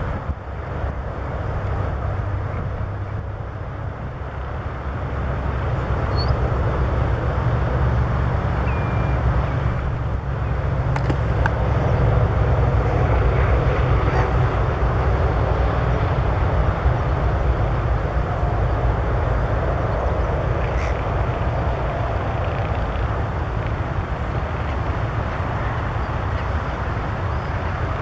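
Wind rumbling on the microphone, getting stronger after about five seconds, with a few faint short bird calls.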